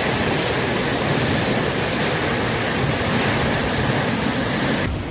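River Don in full flood, its fast-flowing water making a loud, steady rush that starts abruptly. Near the end it cuts to a duller-sounding recording of the same kind of rushing water.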